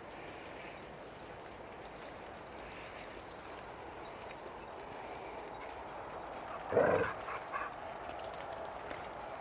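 A dog gives one loud bark about seven seconds in, followed quickly by two shorter, quieter barks, over a steady low background.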